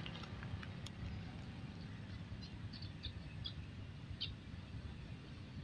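A small bird chirping faintly, a string of short high chirps about halfway through, over a low steady rumble, with a few light clicks in the first second.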